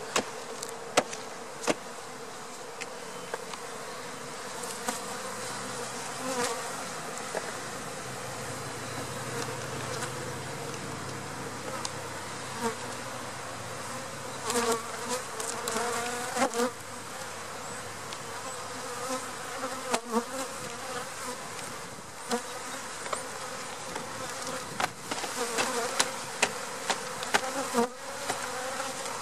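Honey bee swarm buzzing in a steady hum around a hive as the swarm is shaken out of its box, with sharp knocks scattered throughout from the box being rapped to knock the bees down.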